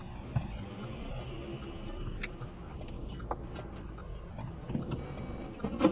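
Low steady rumble of a car cabin through a dashcam microphone, with a few scattered sharp clicks and knocks, the loudest near the end.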